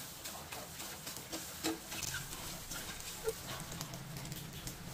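Slotted spatula scraping and stirring scrambled egg in a marble-coated nonstick frying pan, with a run of short scrapes and clicks and a couple of brief squeaks. The pan is then lifted off the gas burner.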